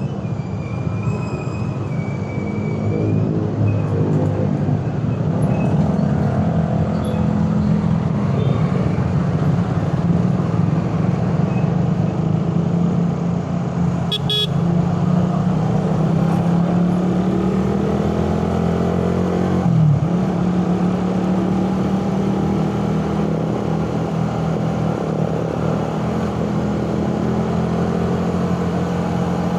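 Suzuki Raider 150 carburetted four-stroke single engine running on the move in traffic, revs rising and falling, with a brief dip in revs about twenty seconds in. Vehicle horns sound in the first few seconds, and there is one sharp click about halfway through.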